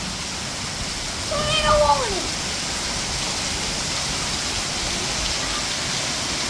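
Steady heavy rain, with a cat meowing once about a second and a half in, a single call that falls in pitch.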